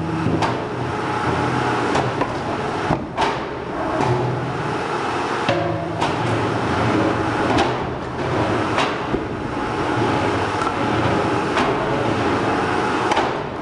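Motor-driven log splitter running with a steady hum, broken by sharp cracks and knocks every second or two as log rounds are split and the pieces fall.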